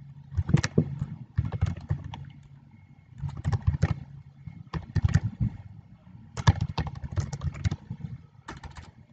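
Computer keyboard typing: keystrokes clicking in short bursts with brief pauses between them.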